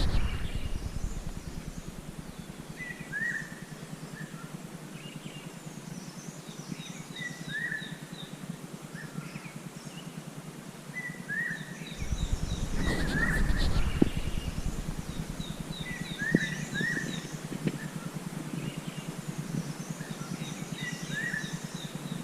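Wild birds calling: a short chirp repeated every second or two, with quick runs of high, evenly spaced notes a couple of times. A low rumble comes in about twelve seconds in.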